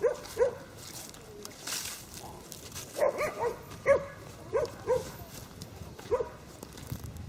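A dog barking repeatedly, short barks in bunches of two or three with pauses between.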